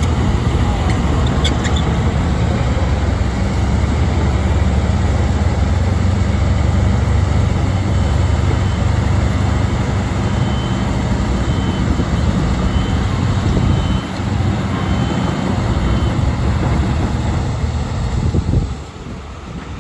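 Heavy diesel earthmoving engine running steadily and loud, with a faint high beep repeating about once a second through the middle. The engine noise drops away just before the end.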